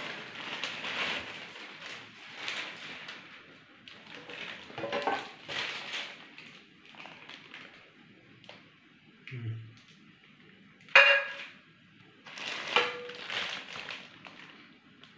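Plastic wrapping rustling and crinkling as cookware and a gas stove are handled in a cardboard carton. A sharp ringing clang of metal cookware about eleven seconds in is the loudest sound, with a second ringing knock a couple of seconds later.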